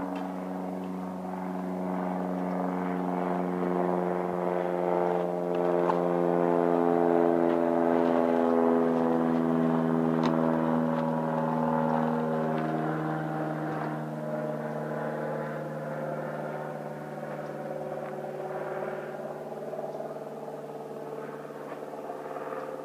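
Float plane flying over: a propeller engine drone that swells to its loudest about halfway through, then fades as its pitch drops.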